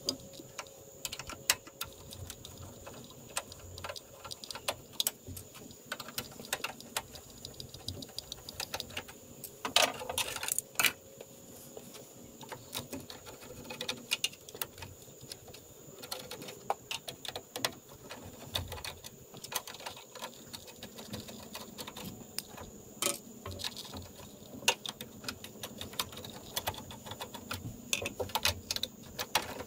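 Irregular small metallic clicks and taps of a hand screwdriver backing out the screws of a headlight retaining ring, with the loose metal ring and screws clinking. A denser run of clicks comes about ten seconds in.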